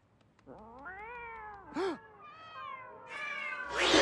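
Cats yowling: long, wavering moans that rise and fall in pitch, one after another, until many cats yowl at once near the end. These are the cries of angry, agitated cats.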